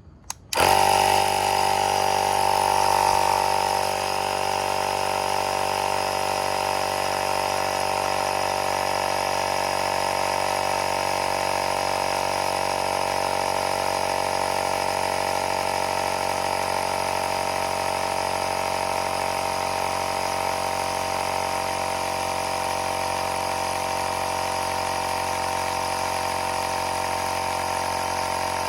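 Electric air compressor running steadily while inflating a scooter's new inner tube. It switches on abruptly, is a little louder for the first few seconds, then holds an even drone.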